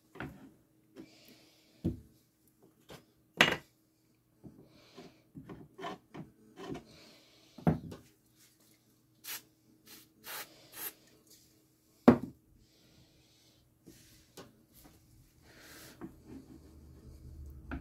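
Small pine wood pieces and a chisel being handled on an MDF disc: scattered knocks and taps with light rubbing between them, the sharpest knocks about three and a half and twelve seconds in.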